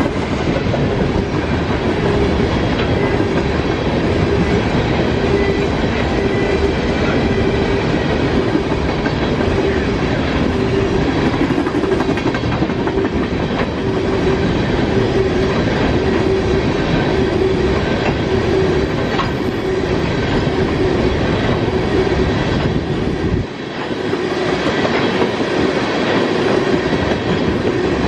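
Norfolk Southern freight train's cars rolling past close by: a continuous loud rumble of wheels on rail with a steady tone running through it. The low rumble dips briefly about 23 seconds in.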